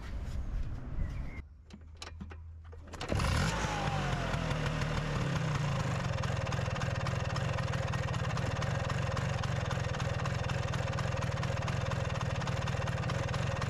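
Vespa PX scooter's single-cylinder two-stroke engine starting suddenly about three seconds in, then idling steadily.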